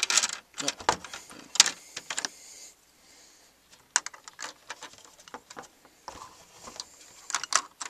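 Plastic Lego pieces clicking and rattling as a hand fiddles with the bricks at the base of the set on a baseplate: scattered short clicks, busiest near the start and again toward the end.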